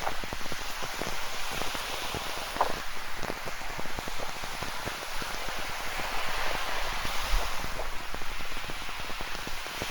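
Rain falling with many close, sharp drops pattering, a few giving a short plink, over a steady hiss of ocean surf that swells slightly about six seconds in.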